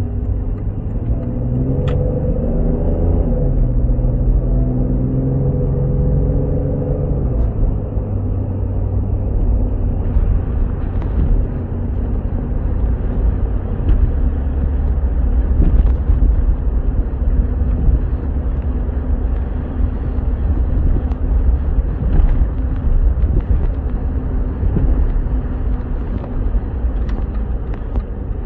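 Inside the cabin of a 1996 Jeep Cherokee on the move: the engine's note climbs for the first few seconds as it picks up speed, then settles into a steady low rumble with road noise at cruising speed. A short click sounds about two seconds in.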